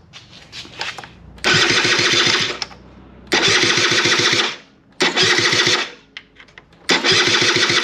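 Aprilia SR50 DiTech scooter's two-stroke engine cranked on the electric starter in four bursts of about a second each, turning over with quick even pulses but not firing. This is a no-spark test after pulling a 7.5 A fuse, and the engine still does not catch.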